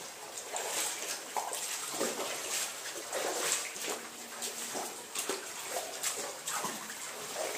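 Water splashing and sloshing in irregular bursts, echoing inside a limestone cave.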